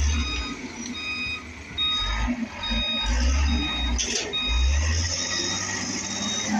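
An electronic warning beeper sounding short, evenly spaced beeps, about two or three a second, over intermittent low rumbling.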